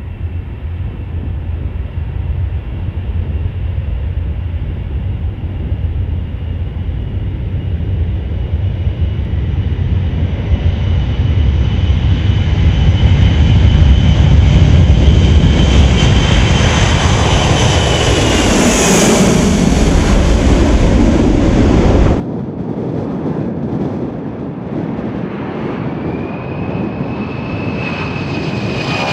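Boeing C-17 Globemaster III's four turbofan jet engines running at high power as the aircraft rolls along a dirt runway. The roar builds and a high engine whine drops in pitch as it passes by, about 18 seconds in. A sudden cut about 22 seconds in gives a quieter jet roar whose whine rises and falls again near the end.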